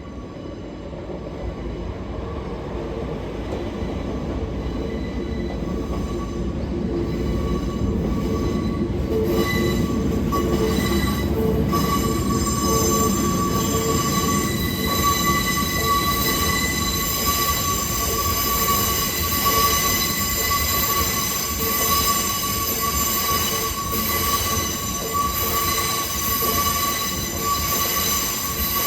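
Freight train rolling through a level crossing, its steel wheels squealing steadily on the rails over a low rumble. The sound builds over the first ten seconds as the train comes close, then holds loud and steady.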